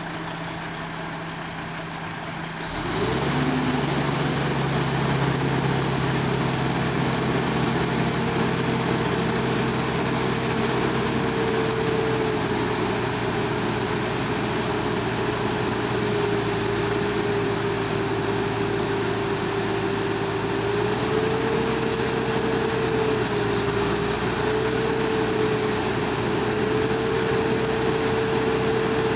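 Mobile crane's diesel engine picks up speed sharply about three seconds in, then runs hard and steady, its pitch drifting slightly up and down. This is the engine under load as the crane lifts the heavy dragline bucket.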